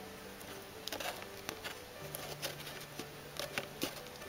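Jumbo-size Pokémon trading cards being handled and slid against each other: scattered light scuffs and taps, more of them in the second half. Under them, faint background music with slow held notes.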